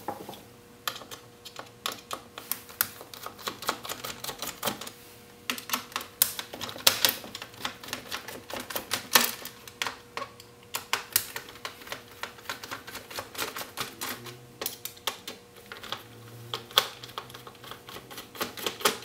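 Irregular clicks and taps of a Cisco desk phone's plastic casing, circuit board and small screws being handled as the phone is taken apart, several a second with louder clicks now and then.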